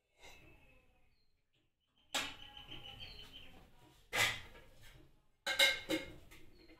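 Steel kitchen utensils clinking and clattering: about five sharp metallic knocks a second or two apart, several ringing briefly.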